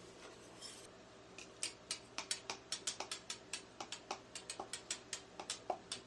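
Metal spatulas striking the steel cold plate of a rolled ice cream griddle, a quick irregular run of sharp clicks, about four or five a second, starting a little over a second in, as the ice cream mix is chopped.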